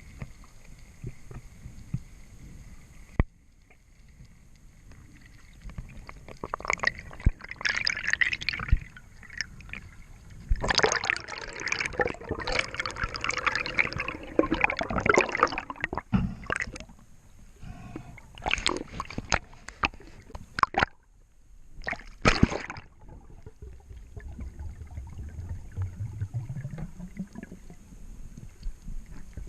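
Water gurgling and splashing in irregular bursts, with many sharp clicks. A low hum rises in pitch near the end.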